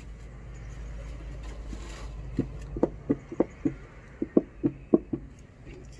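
A quick run of about a dozen short taps on a cardboard box of Borax powder as it is shaken and tipped into a plastic tub, over a low steady background rumble. The taps start a couple of seconds in and stop shortly before the end.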